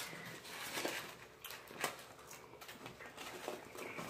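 A few soft clicks and light rustles of plates and food being handled at a table, the sharpest about a second and a half to two seconds in.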